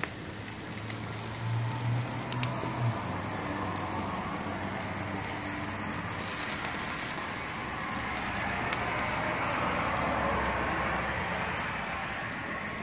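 NY strip steaks sizzling over open grill flames, fat spitting and flaring in a steady hiss and rush of fire that grows louder about eight seconds in.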